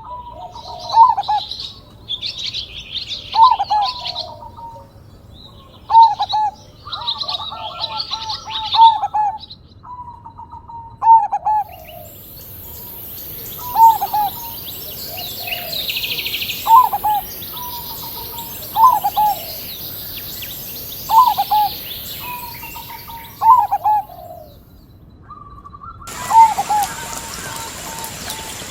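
A zebra dove (perkutut) cooing, its short rolling phrase repeating about every two to three seconds, over the chirping of small birds. A high steady hiss joins them through the middle.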